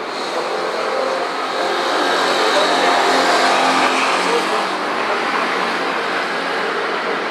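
City street traffic: cars and motor scooters passing through an intersection. It swells about a second in and is loudest around three to four seconds.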